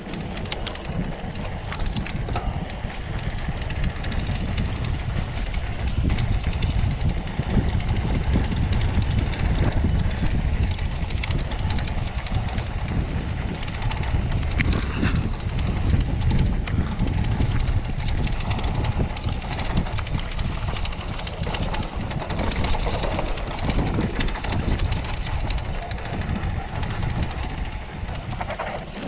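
Mountain bike rolling over a rough dirt trail: a steady low tyre rumble with a dense clatter of small knocks and rattles from the bike, swelling and easing as the ground changes.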